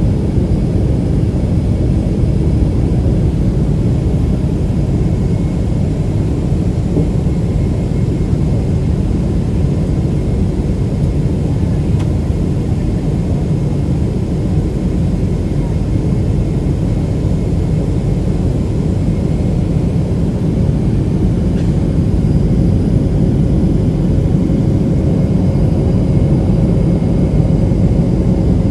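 Jet airliner cabin noise heard from inside the cabin: a steady low rumble of engines and airflow.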